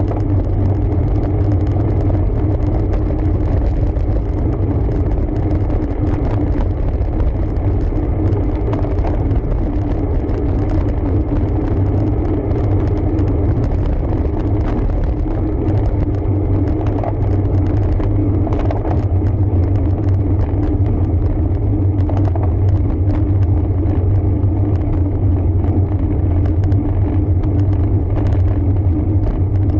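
Steady low rumble of wind and road noise on a camera riding on a road bike, with faint ticks over it.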